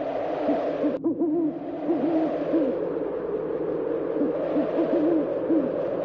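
Owl hooting: short, low hoots repeated in quick runs, several each second, over a steady hiss. The sound breaks off sharply and resumes about a second in.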